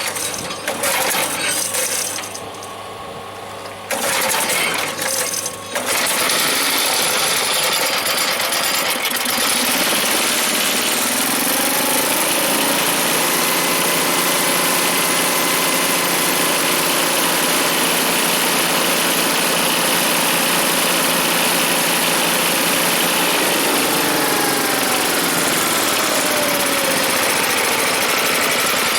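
The Mighty Mac chipper shredder's small gas engine being started on choke: a few seconds of uneven sputtering with gaps, then it catches about six seconds in and runs steadily. It runs well, a "nice running machine" that "sounds really good".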